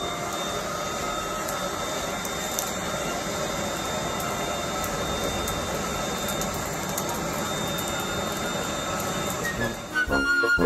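A handheld electric blower running steadily, fanning air onto burning charcoal in a grill to get the coals going. Music comes in near the end.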